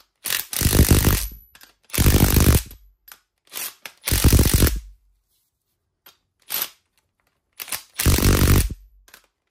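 Impact wrench tightening the bolts of a bearing splitter in several short rattling bursts with pauses between, forcing a rusted-on bearing off a mower deck spindle.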